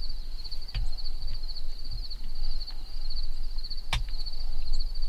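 Insects trilling steadily at a high pitch over a low, uneven rumble, with a few short sharp clicks, the strongest nearly four seconds in.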